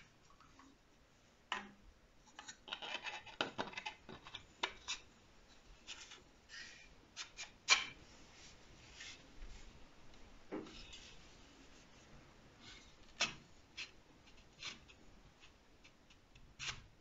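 3D-printed plastic rifle stock parts handled and slotted together: clicks, knocks and plastic sliding on plastic as the cheek-rest posts are pushed into the stock frame. There is a busy stretch of scraping a few seconds in and a sharp click near the middle.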